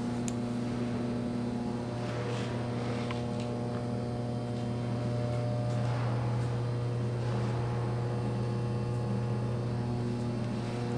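A steady low hum with several fixed higher tones layered above it, unchanging throughout, and faint scuffs of movement over it.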